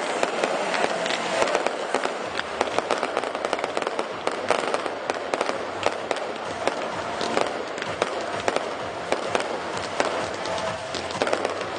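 Fireworks display: a dense, continuous barrage of aerial shells bursting, with many sharp bangs over steady crackling.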